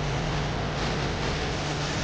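Air conditioner outdoor unit running: a steady low hum under an even hiss.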